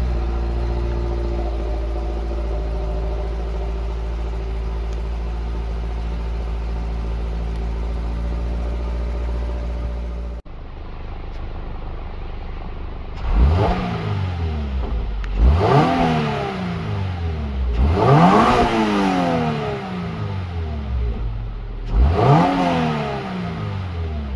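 Toyota GR86's 2.4-litre flat-four on its factory exhaust. It runs a steady fast idle just after a cold start, then after a cut about ten seconds in it is revved four times, each rev rising and falling quickly, the third held a little longer.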